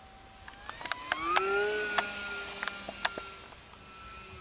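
Small 2205 brushless electric motor and propeller of an RC foam glider whining in flight. The pitch and loudness rise about a second in, hold, then ease off as the sound fades, with a few faint clicks.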